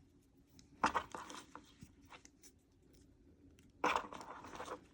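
Handling noise of small computer tools being worked back into the elastic loops of a zippered tool pouch: a sharp click about a second in, a few faint ticks, then a longer stretch of rustling near the end.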